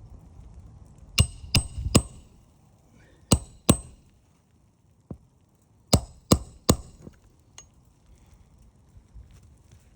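Hammer blows on metal, with a short metallic ring after each: three quick strikes, then two, then three more, during nail work on an asphalt-shingle roof repair.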